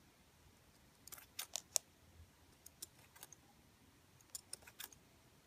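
Scissors snipping through thin clear plastic, trimming the edge of a heat-fused shaker charm. Faint short snips come in three short runs, about a second and a half apart.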